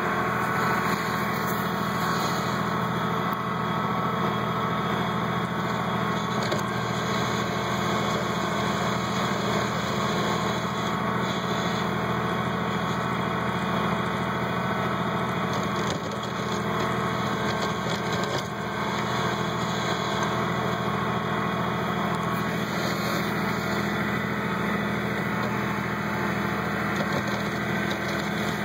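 Kubota B1700 compact tractor's three-cylinder diesel engine running steadily as the tractor pushes snow.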